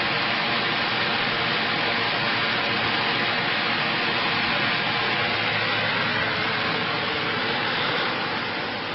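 Steady, even hiss like rushing air or fan noise, easing slightly near the end.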